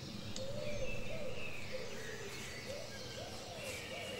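A strange low groaning call repeated over and over, each one a short rise and fall in pitch, with birds chirping faintly higher up.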